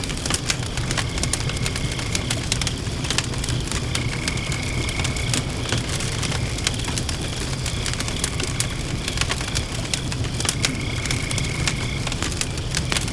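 Campfire crackling with frequent sharp pops over a low steady rumble of the flames. Crickets and frogs call steadily behind it, with a high trill that comes in three times for a second or so.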